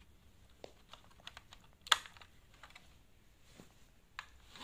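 Plastic Lego bricks clicking and clattering as a built model is handled: a scattering of small light clicks, with one sharper click about two seconds in.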